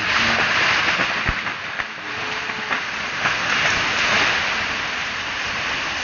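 A cut tree crashing down through the canopy: a rush of leaves and branches with several sharp cracks of snapping wood, easing off after about four seconds.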